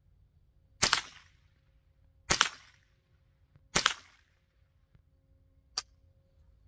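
.22 LR rifle firing three shots, evenly spaced about a second and a half apart, each with a short echo. A fainter sharp click follows near the end.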